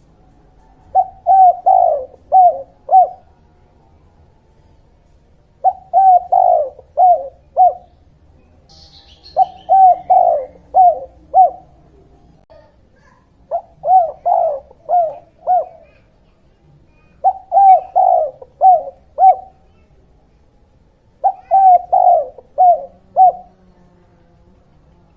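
Spotted dove (tekukur) cooing, a song repeated six times at about four-second intervals, each phrase of four or five short coos. A brief high chirp from another bird comes once, about a third of the way in.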